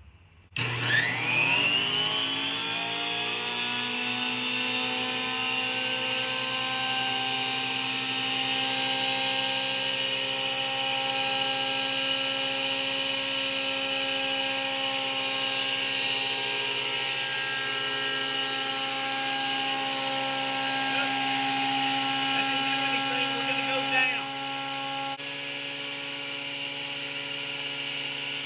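Bauer benchtop thickness planer switched on about half a second in: the motor's whine rises quickly in pitch as it spins up, then runs steadily with a high whine. Near the end a short knock comes, and the sound then drops slightly.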